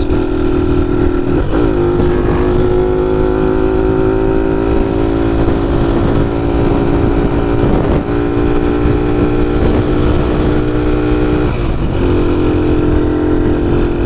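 Honda C90 motorcycle engine running at a steady cruise under a rider, with wind rumble on the microphone. The engine note dips briefly about a second and a half in and again near the end. The rider feels it is lacking kick and puts this down to the carburettor's air-fuel mixture.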